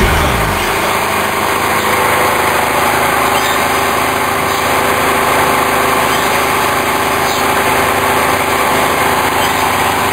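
Spindle motor of a hobby CNC milling machine running steadily at speed while its small cutter drills and mills into a cast-iron workpiece.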